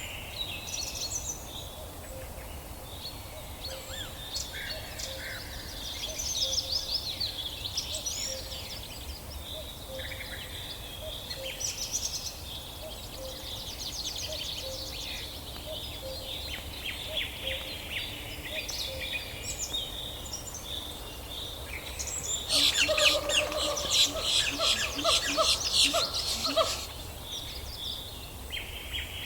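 Birds chirping and calling in many short, overlapping notes, with a louder, denser outburst of calls for a few seconds near the end.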